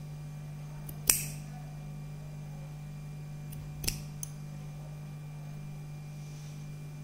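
Scissors snipping through a bunch of wool yarn fringe ends: two cuts, a sharp one about a second in and another near four seconds with small clicks of the blades around it. A steady low hum runs underneath.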